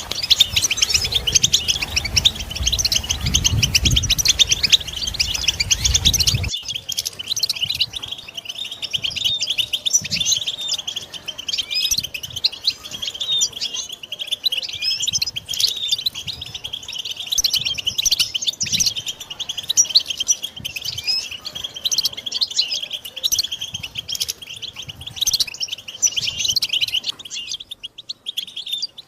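European goldfinches twittering and calling in a dense, unbroken stream of quick high chirps, the group chatter used to stir a male goldfinch into song. A low rumble underneath cuts off abruptly about six seconds in.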